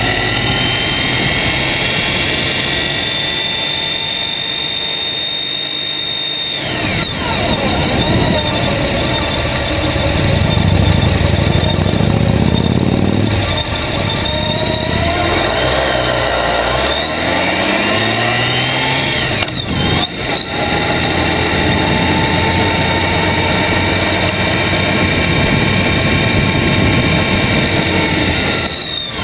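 Motorcycle engine heard from a camera mounted low on the bike while riding, its pitch rising and falling several times as the rider accelerates, shifts and slows, over steady wind and road rush.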